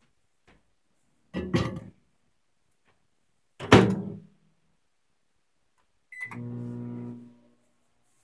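Two clunks as the bowl goes into a microwave oven and its door is shut, the second the louder. About six seconds in a keypad beep sounds and the microwave starts running with a steady hum.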